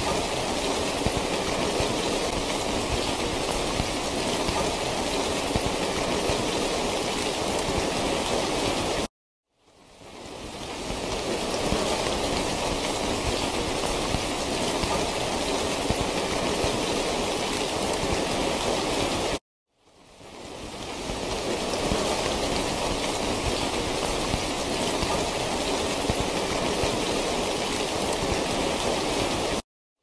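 Steady rain that cuts out suddenly three times, about every ten seconds, each time fading back in over a couple of seconds: a short rain recording played on a loop.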